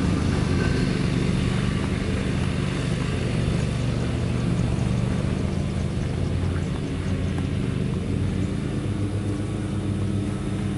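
Ford F-550 Super Duty truck engine idling steadily, a low even running sound that eases off slightly near the end.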